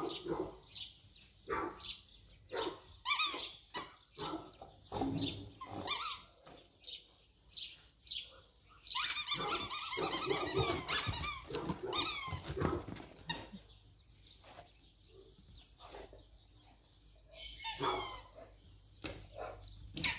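Dog barking in short bursts during play, with a longer, louder run of barks about nine seconds in and another brief one near the end.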